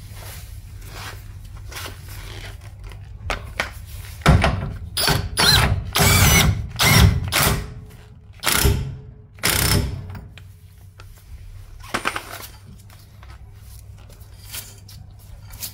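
Cordless impact wrench run down onto a rear wheel-hub nut in about six short bursts, about four to ten seconds in, with quieter handling of the brake drum before and after.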